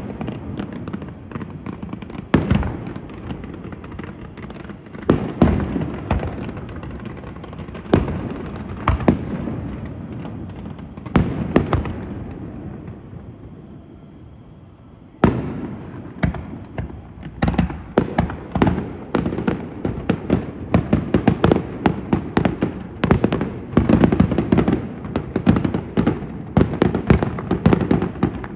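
Aerial fireworks bursting in the sky: scattered booms with a lull in the middle, then from about halfway a loud bang starts a quick run of bangs that grows denser toward the end.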